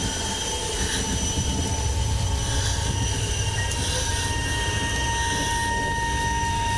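Steady high-pitched squealing tones held over a continuous low rumble.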